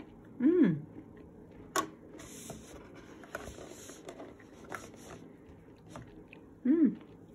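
A person chewing a piece of dairy-free chocolate with crunchy honeycomb-style bits, with a sharp crunch just under two seconds in. Two short appreciative 'mmm' hums with a falling pitch, about half a second in and near the end.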